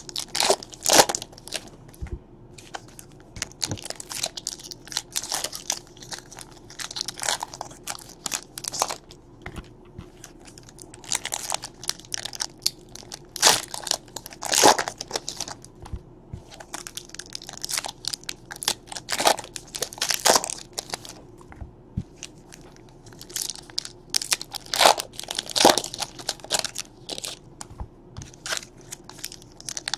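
Plastic wrappers of 2017 Panini Donruss baseball card packs crinkling and tearing as the packs are opened, with the cards handled and flicked through; irregular short bursts of crackling throughout.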